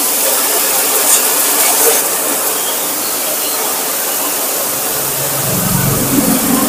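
High-pressure water jet from a commercial pressure washer (Hotstarr HS 180, 4 HP motor) hissing steadily as it blasts mud and grime off a backhoe loader's tyre and wheel rim. A low hum joins about five seconds in.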